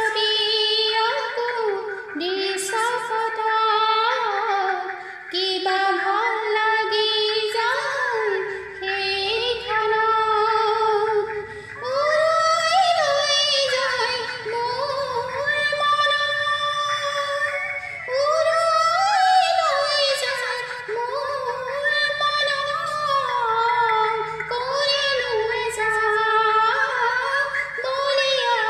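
A woman singing an Assamese song solo: a slow melody with long held notes and sliding pitch, broken by short breaths. The voice is close-miked through an earphone microphone.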